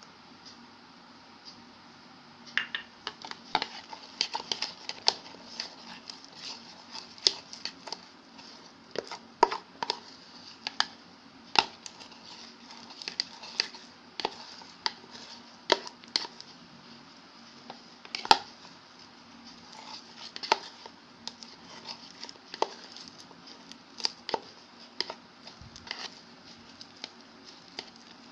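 Thick clay slime (clay, glue, liquid soap and water) being mixed in a container, with irregular sticky clicks, crackles and taps, several a second, starting a few seconds in. A faint steady low hum runs underneath.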